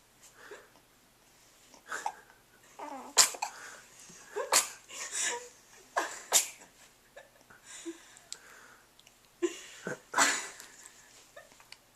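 Repeated hiccups: about eight sharp, sudden catches of breath at uneven intervals, a second or so apart, with a longer gap before the last two.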